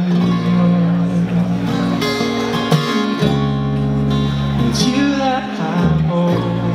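Live acoustic band music: mandolin and acoustic guitar with electric guitar, and a short sung phrase about five seconds in.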